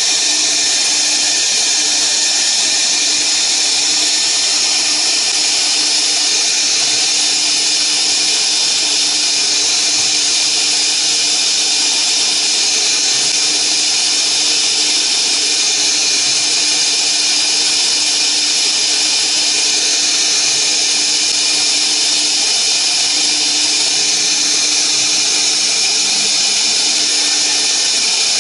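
CNC router spindle running at high speed while its fine bit engraves characters into a flat board: a steady, high-pitched whine with no let-up.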